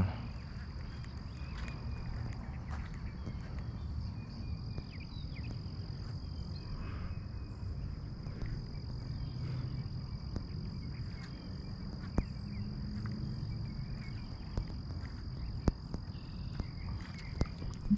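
Insects calling in a steady, unbroken high-pitched drone, over a low rumble on the microphone, with a few sharp clicks.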